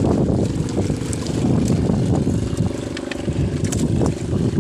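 Strong wind buffeting the microphone aboard a small wooden fishing boat at sea, a steady low rumble, with a few light knocks from handling the line against the hull.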